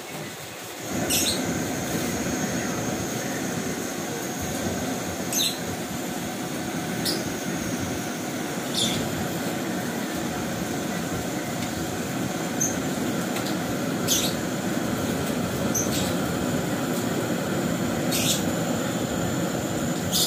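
Pot of water heating on a stove: a steady rushing noise from the burner and the water coming up toward the boil, with short high squeaks now and then.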